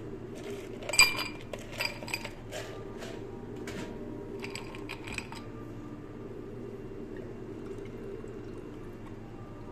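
Ice cubes tipped into a glass rocks tumbler, with a loud clatter about a second in, followed by a string of lighter clinks over the next few seconds as the cubes settle and are shifted by hand. After that only a steady low hum remains.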